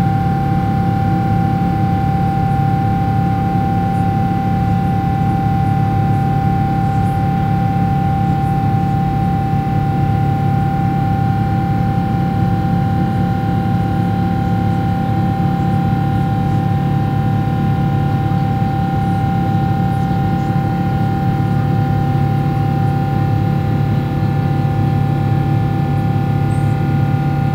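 A Boeing 777-300ER's GE90-115B turbofan at climb thrust, heard inside the cabin: a steady deep rumble with the buzzsaw drone of several unchanging tones from the fan.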